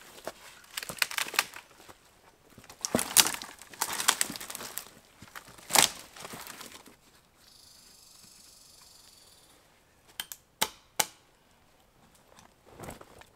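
Boots crunching over old snow and dry forest litter, with dead wood and branches crackling and snapping, including one sharp crack about six seconds in. Near the end come a few sharp clicks.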